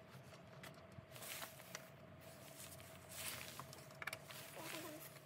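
Faint scraping and a few light clicks as a screwdriver and hands work the screws and lid of a car's plastic air-filter housing.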